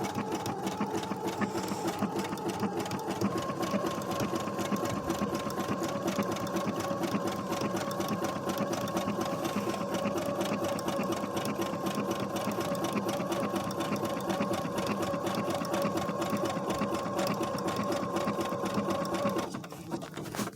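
Brother SQ9285 sewing machine running steadily, stitching a dense embroidery stitch with rapid needle strokes over a steady motor tone. Its pitch steps up about three seconds in, and it stops about a second before the end, as the fabric is paused for rotating.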